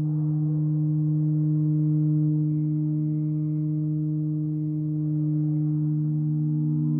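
Halldorophone feedback drone: the D-string sustains a steady electronically fed-back tone with its octave above, while a sympathetic string, its pitch bent behind the nut, adds a fainter second pitch that glides briefly about halfway through. The two strings interfere, so the drone swells and fades slowly in a beating pattern.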